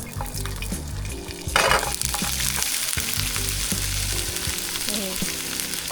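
Food starts frying in a hot pan about a second and a half in: a sudden loud hiss that settles into steady sizzling. Background music plays throughout.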